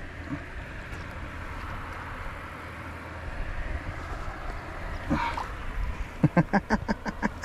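Wind rumbling on the microphone. About six seconds in, a quick run of sharp rattling pulses, roughly six a second.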